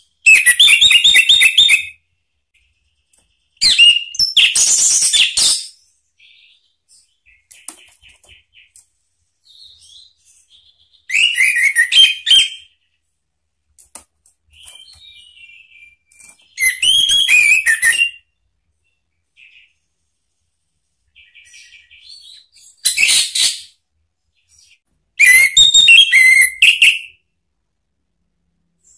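Orange-headed thrush singing: six loud, rapidly warbling song phrases of about one to two seconds each, separated by pauses filled with soft, quiet twittering.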